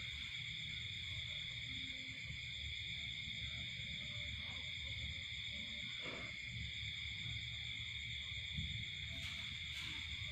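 Steady high-pitched chorus of night insects, continuous with no breaks, over a low background rumble.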